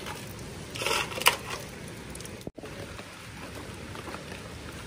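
Steady hiss of light rain, with a short scrape and a sharp click about a second in and a brief dropout midway.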